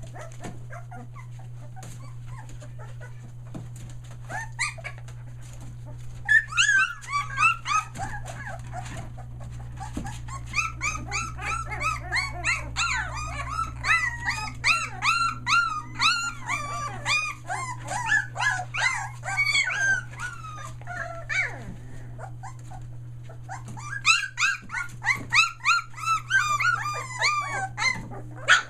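A litter of three-week-old Australian Shepherd puppies whining and crying: many short, high, rising-and-falling squeals that overlap each other. They come in bouts, busiest through the middle and again near the end.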